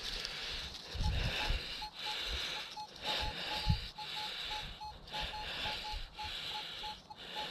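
Metal detector beeping in short pulses at one steady pitch, a few beeps a second, as it sits over a target during recovery. A few low thumps from handling and digging are mixed in.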